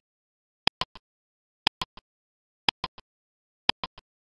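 Countdown timer's clock-tick sound effect: one tick each second, four in all, each a sharp click followed quickly by two fainter ones, with silence between.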